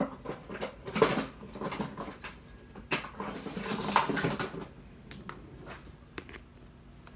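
A spatula scraping cake batter out of a mixing bowl into a cake pan, with irregular scrapes and knocks for the first few seconds, then a few faint clicks.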